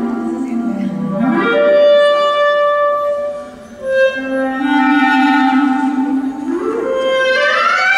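Clarinet playing a Colombian pasillo over acoustic guitar accompaniment. It holds low notes and twice slides upward into higher held notes, once about a second and a half in and again near the end, with a short break in the sound about halfway through.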